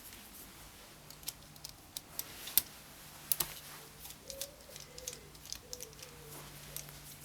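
Irregular light clicks and taps of small hard objects being handled, over a faint low hum; a faint wavering tone comes in about halfway through.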